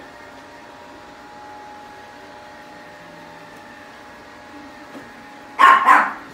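A chihuahua barks twice in quick succession near the end, over the steady hum of a robotic vacuum running.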